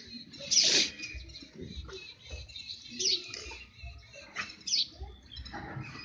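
Two dogs fighting and wrestling on dirt ground, with uneven low scuffling and several short, sharp high calls that fall in pitch.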